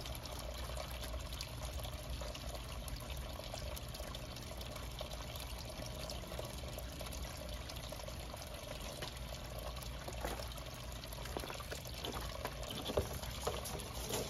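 Steady trickle of water pouring into a garden pond, with a few faint knocks near the end.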